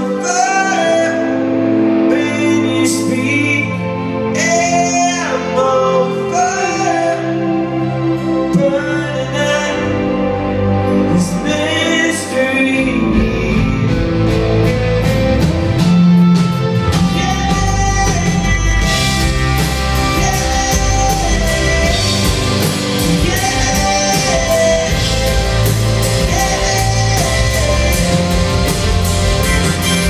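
A rock band playing live: sung vocals over electric guitar and drums. The bass and drums fill out the low end much more heavily about thirteen seconds in.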